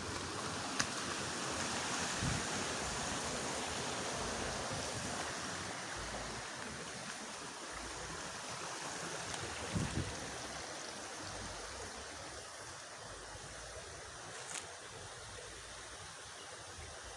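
Fast-flowing water rushing steadily, easing off slightly through the second half, with a few faint knocks and a low thump about ten seconds in.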